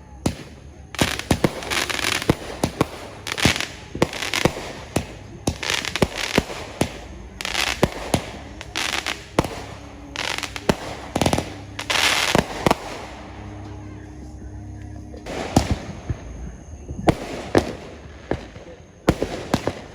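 Fireworks and firecrackers going off: many sharp bangs and short crackling bursts at an irregular pace, easing off for a couple of seconds in the middle before starting again.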